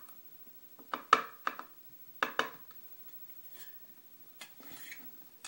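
Small metal lock parts clicking and tapping against each other and a wooden pinning tray as a pin-tumbler padlock is taken apart. A cluster of sharp clicks comes about a second in, two more follow a second later, and there is faint handling near the end.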